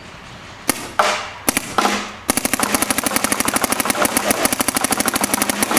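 Planet Eclipse electronic paintball marker firing: a few separate shots, then from about two seconds in a fast, even string of shots at around fourteen a second. This is a rate-of-fire run, with the trigger pulled as fast as possible.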